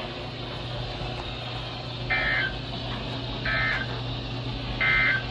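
Emergency Alert System end-of-message signal: three short bursts of shrill digital data tones, each under half a second, about a second apart, over a steady low hum.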